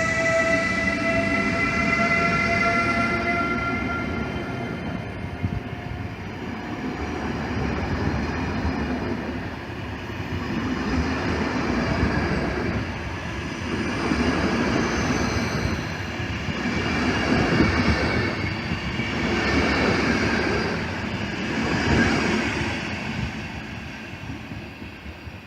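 A train horn sounding a steady chord that fades over the first few seconds, then a passenger train rolling past with rhythmic wheel clatter over the rail joints. The clatter fades near the end.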